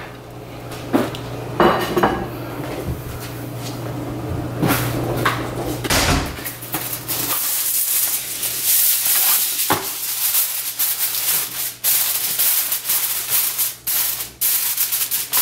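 A few light clatters, then from about seven seconds in aluminum foil crackling and rustling as a sheet is pulled from the box and pressed down around the rim of a disposable aluminum pan.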